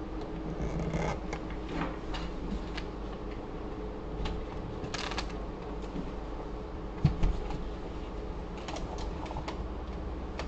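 Scattered clicks and knocks of an opened desktop PC tower being handled and moved off a workbench, with a louder knock about seven seconds in, over a steady low hum.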